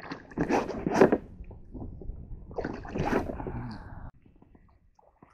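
Water splashing and sloshing beside an inflatable boat, mixed with rustling as someone moves, in two bouts that stop about four seconds in.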